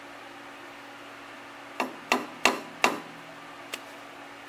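Four quick hammer blows on a round bar held in a lathe chuck, knocking the part over so that it runs true.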